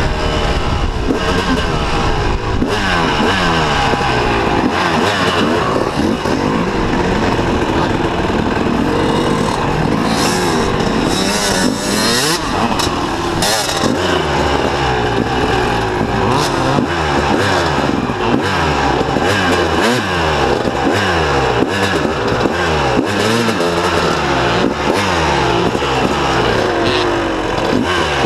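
1998 Kawasaki KX250 single-cylinder two-stroke engine with V-Force reed valves and an FMF exhaust, being ridden hard: the revs rise and fall over and over, with a fresh rise about every second through the second half.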